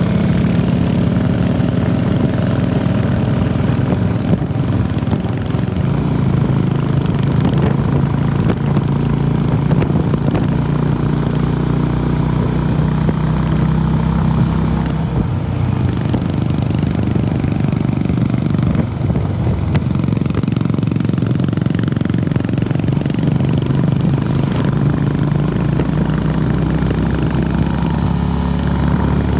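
Honda CB350RS's air-cooled single-cylinder engine running steadily. Its note changes about halfway through.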